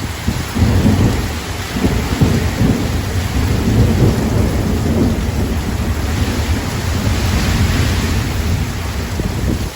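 Strong storm wind gusts buffeting the microphone, a heavy, uneven low rumble, over the steady hiss of heavy rain. The gust starts about half a second in and drops away just before the end; the hiss swells higher about two-thirds of the way through.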